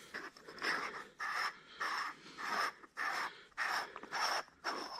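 KINGrinder K1 hand coffee grinder being twisted apart, its threaded metal parts rasping in about eight short scrapes, roughly two a second, as the grounds catch cup is unscrewed.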